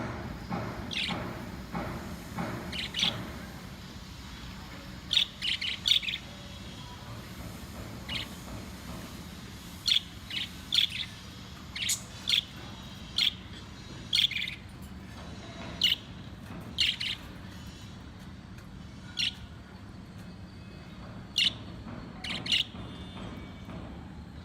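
Pet budgerigars in a colony cage chirping: short, sharp high calls scattered irregularly, some in quick pairs, over a low steady hum.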